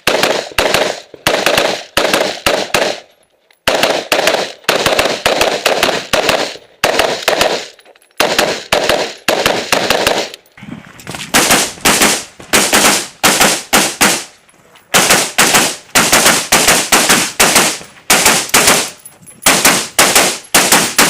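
AR-15 rifle in .223/5.56 firing fast semi-automatic strings of loud shots, about three to four a second, broken by several short pauses between target arrays.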